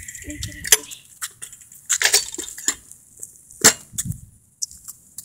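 Handling noise: irregular light clicks and knocks, a few each second, with quiet between.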